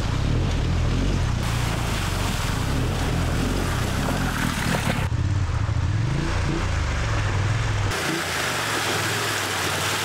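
Motorcycle engines revving and running over rough ground, with a rushing noise that may be water, cut together from a few shots so the sound changes abruptly about a second and a half in, around the middle, and again near the end.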